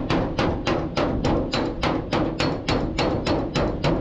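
Flat metal scraper dragged in quick, even strokes over the steel side panel of a truck cab, about three to four scrapes a second.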